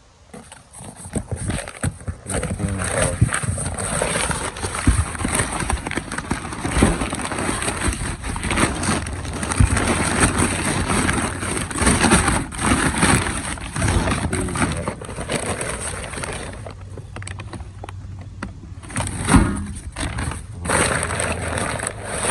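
Crumpled brown kraft packing paper rustling and crinkling as a hand digs through a cardboard shipping box. A dense run of crackles, dipping quieter for a couple of seconds near the end.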